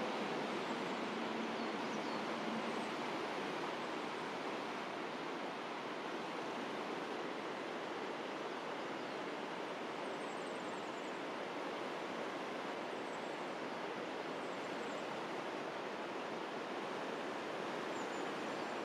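Steady rushing of a mountain river flowing through the rocky gorge, with a few faint high chirps now and then.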